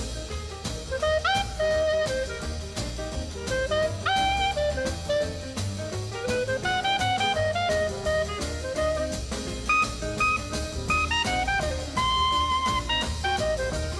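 Background jazz instrumental: a horn carries a moving melody over a steady drum-kit beat and bass.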